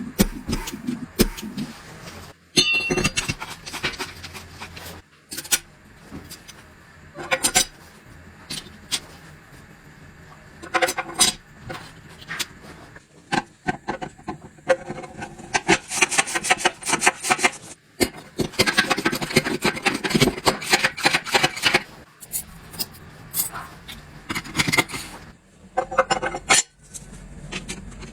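Metal parts and hand tools clinking, knocking and scraping in irregular bursts during transmission assembly, with two longer stretches of scraping a little past the middle.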